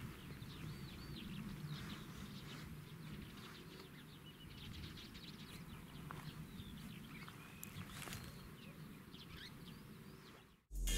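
Small birds chirping and singing over a low, even outdoor background rumble; the sound cuts off suddenly near the end.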